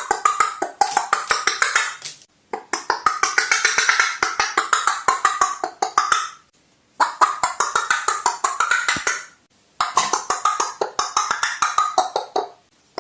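Crow making a rattling call: rapid dry knocking clicks, about ten a second, in four bouts with short pauses between them.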